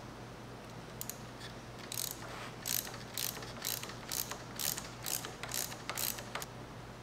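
Ratchet wrench clicking in short rasps, about two a second, as it backs out the bolt holding a manual transmission's shifter.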